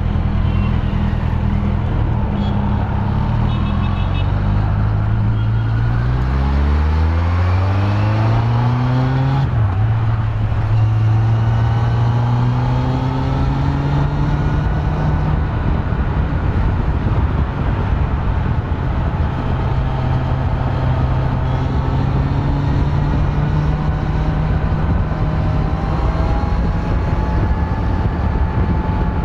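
Kawasaki Z900's stock inline-four engine under way: it holds a steady note, then revs climb for a few seconds and drop sharply at a gear change about nine seconds in. It then pulls up more gently and settles into a steady cruise, over a constant rushing noise.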